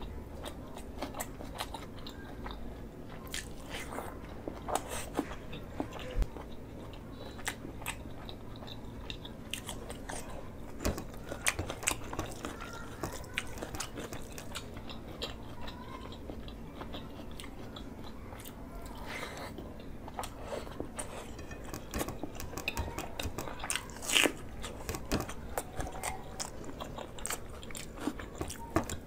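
Close-miked eating: chewing and wet mouth clicks and smacks while rice and curry are eaten by hand, with fingers squishing and mixing the rice on a plate. Irregular small clicks throughout, a few sharper than the rest.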